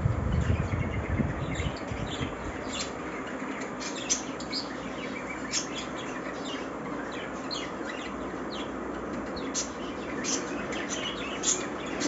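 Many short, high chirps from a mixed aviary of budgerigars and finches, scattered throughout, with a low rumble in the first couple of seconds.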